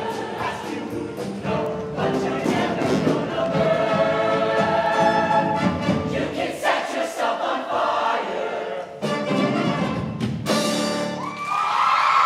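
Show choir singing a pop number with band accompaniment and drum hits, ending on a final hit about ten and a half seconds in. The audience starts cheering and whooping near the end.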